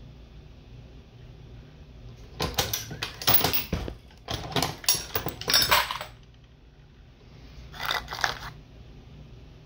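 Dillon XL750 progressive reloading press cycling on .223 cases: metallic clacks and clinks of the handle stroke, shell plate indexing and brass moving through the stations, in two runs of rapid clicks a few seconds in. Near the end a shorter clinking as a hand reaches into a small box of components.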